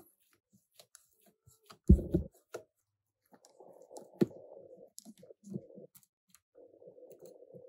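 Small clicks and a faint scraping of a 1.2 mm Phillips precision screwdriver turning out a tiny screw from a phone's thin metal bracket. A dull knock comes about two seconds in.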